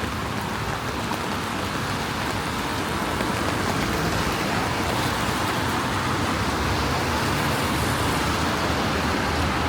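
Road traffic on rain-wet city streets, a steady tyre hiss over a low rumble, mixed with falling rain; it swells a little about three seconds in and holds.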